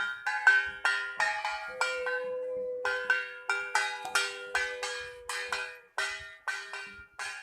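Puja hand bells rung in quick repeated strokes, about three to four a second, each ringing on. A steady lower tone holds for a few seconds in the middle, while the strokes pause briefly around two seconds in.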